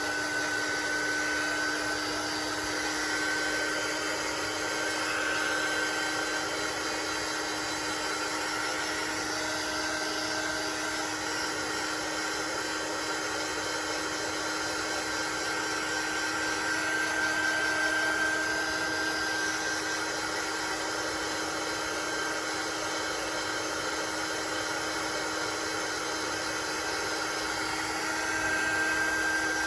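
Crafting heat tool (embossing heat gun) running steadily, a small fan motor's whine over a rush of blown air, drying freshly applied Mod Podge on a card.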